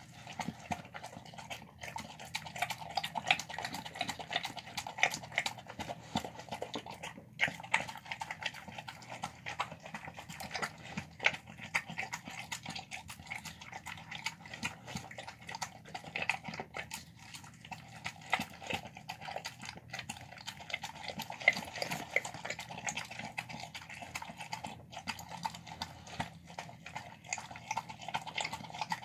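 A dog eating from a plastic tub: a continuous run of quick, irregular wet chewing, licking and smacking clicks as it works through chicken, celery and broth-soaked brown rice.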